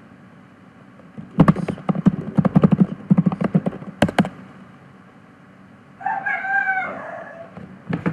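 Computer keyboard keys clicking in a quick run as a terminal command is typed, ending in one harder keystroke. About six seconds in comes a single long animal call of about a second and a half, ending lower, that sounds like a rooster's crow.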